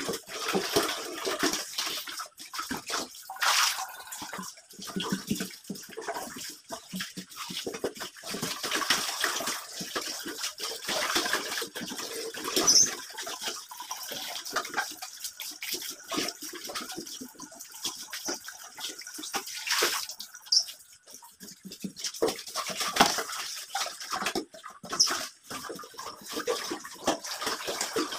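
Running water splashing into a small glass fish tank while it is scrubbed by hand with a sponge, no soap, with irregular knocks and scrapes of the glass and basin.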